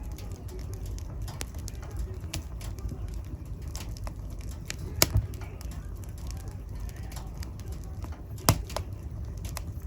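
Fire burning in a fireplace: a steady low rumble with scattered crackles, and two sharper pops, one about halfway through and one about a second before the end.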